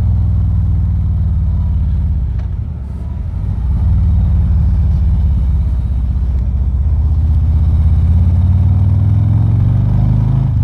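Harley-Davidson Ultra Limited V-twin engine running on the move with wind rush, heard through a lapel mic inside a full-face helmet with the visor down. The engine sound eases off about two and a half seconds in and picks up again about a second later.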